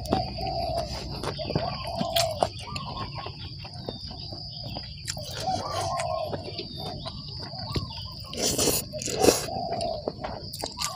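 A bird calling again and again in short cooing phrases over a steady high-pitched insect drone, with loud close-up eating sounds about eight and nine seconds in.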